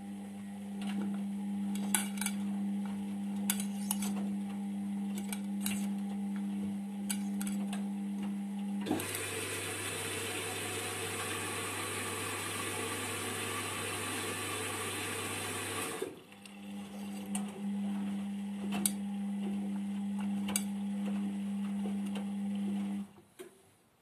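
Indesit IWUC 40851 front-loading washing machine in its wash phase: the drum motor hums as the drum turns the wet laundry, with light clicks of items tumbling. About nine seconds in, the motor stops and water rushes into the drum for about seven seconds. Then the drum turns again and stops about a second before the end.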